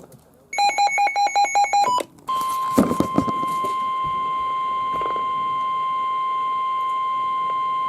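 NOAA weather radio sounding an alert: a quick run of beeps, then about two seconds in a long, steady 1050 Hz warning alarm tone, the signal that a new warning is about to be read.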